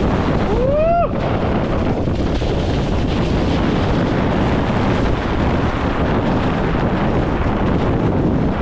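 Heavy wind rushing over a helmet-mounted action camera's microphone while a mountain bike descends a forest trail at speed. About a second in, a brief rising squeal cuts through.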